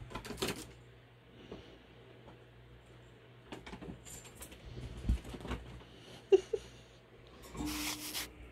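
Squirrels scampering over a bed's fabric covers: rustling and scrabbling of claws on cloth, with scattered taps and two sharp clicks a little past six seconds in, and a longer burst of rustling near the end.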